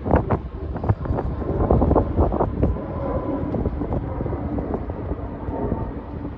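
Boeing 787-9 airliner's jet engines giving a steady low rumble, with faint steady whining tones over it. Wind buffets the microphone in frequent gusts.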